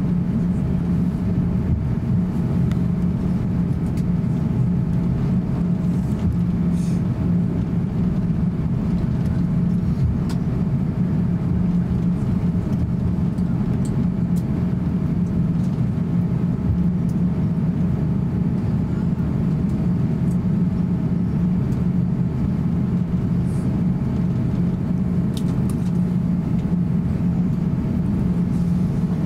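Cabin noise of an Airbus A350-900 taxiing: its Rolls-Royce Trent XWB engines at idle give a steady low hum with a fainter, higher steady tone. A few faint clicks are heard along the way.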